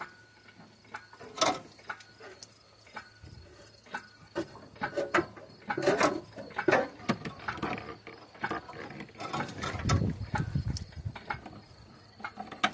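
Irregular ratcheting clicks and clanks of the hoist and its lifting chain as a Ford 302 V8 is pulled out of the engine bay, with a thicker run of clatter about ten seconds in.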